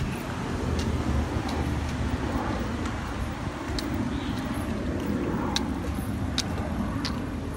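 Steady outdoor background noise: a low rumble and hiss, with a few faint sharp ticks.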